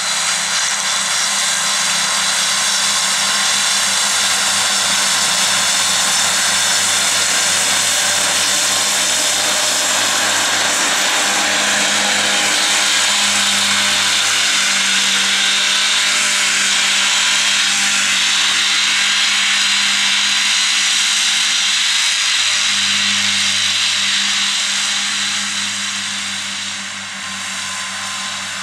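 Fendt 826 Vario tractor working with a triple Kuhn disc mower combination cutting grass: a steady engine drone under a loud, high rushing whine from the spinning mower units, easing off slightly near the end.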